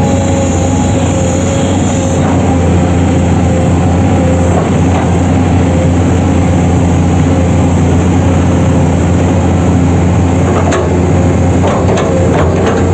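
Excavator's diesel engine running steadily under load as its bucket digs mud, with a few sharp knocks near the end.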